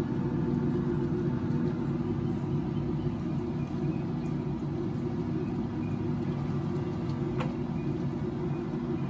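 Pit Boss pellet smoker running at start-up: a steady low hum from its combustion fan while it smokes before the fire catches. One light click about seven seconds in.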